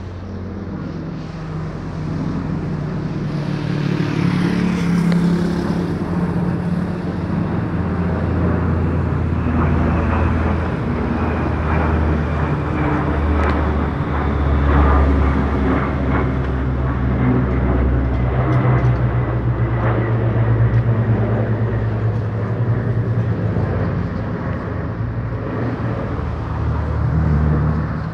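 Military aircraft flying overhead: a loud, steady low engine drone whose pitch slowly shifts as the planes pass. It swells about two seconds in and stays loud.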